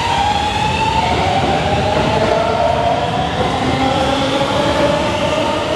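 Keikyu New 1000 series electric train's Siemens GTO-VVVF traction inverter whining as the train pulls away and accelerates: pitched tones that glide upward one after another, the 'Doremifa inverter' sound. Under it runs a steady rumble of wheels on rail.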